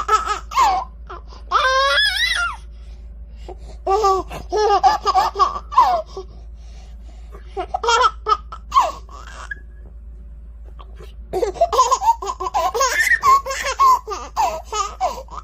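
A baby laughing in several bouts of rapid giggles separated by short pauses, with a high-pitched squeal about two seconds in.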